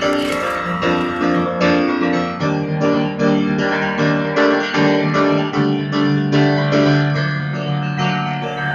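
Piano music, a steady run of notes struck about twice a second.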